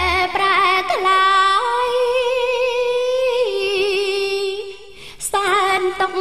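A Khmer dedication song: a solo voice sings long, wavering held notes over light accompaniment, without the bass. The voice stops briefly about five seconds in, then resumes.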